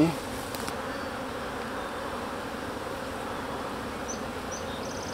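Steady buzzing of a colony of honey bees flying around an opened hive as its frames are being moved.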